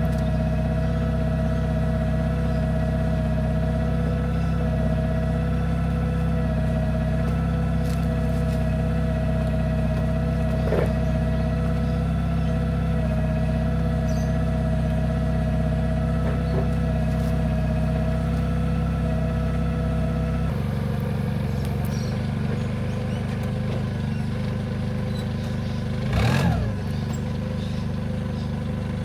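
Engine of a working farm machine running steadily at one speed. About twenty seconds in, its note changes and settles slightly lower. A few seconds later there is a short sound that rises and falls in pitch.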